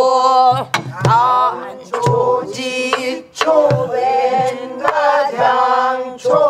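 Pansori singing: voices holding long, wavering melismatic notes, broken by a few short pauses. Sharp buk barrel-drum strokes land every second or two, keeping the rhythm.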